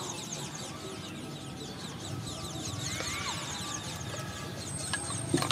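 Outdoor background of birds: a steady run of quick high chirps, with a short rising call about three seconds in.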